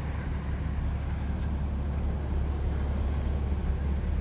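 Motor vehicle engine idling: a steady low rumble.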